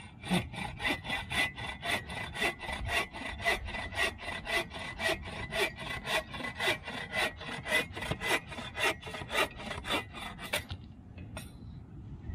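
Hand saw cutting through an old, weathered log in quick, even back-and-forth strokes, stopping about two seconds before the end.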